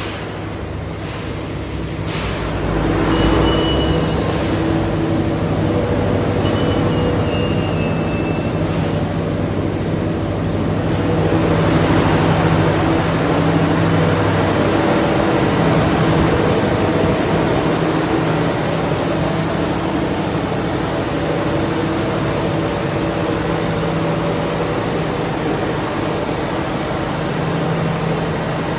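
Generator engine running steadily with an even hum and hiss, growing louder about two to three seconds in and louder and noisier again around eleven seconds in.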